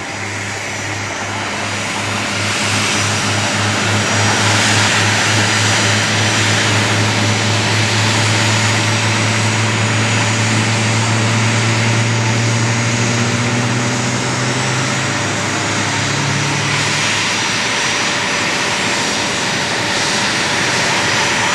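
A-10 Thunderbolt II jets running up their TF34 turbofan engines on the ground: a steady, loud jet roar with a whine, and a low droning hum beneath that stops about three quarters of the way through. The run-up noise drowns out the de Havilland Vampire flying its display overhead.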